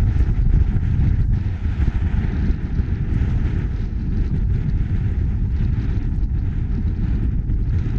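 Storm wind buffeting the action-camera microphone in a blizzard: a loud, ragged low rumble that never lets up.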